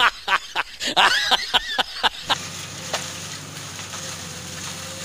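A comic laughing sound effect, a fast run of short cackles about four or five a second, cutting off about two seconds in. After it, the engine of a JCB backhoe loader hums steadily at a distance.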